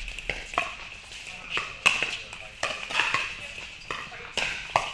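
Pickleball paddles striking a plastic pickleball in a quick rally at the net, a sharp pock about every half second, among the voices and hits of a busy indoor facility.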